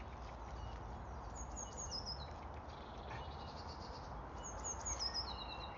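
A songbird singing two short phrases, each a quick run of high notes stepping down in pitch, the first about a second and a half in and the second near the end, over a steady low background rumble.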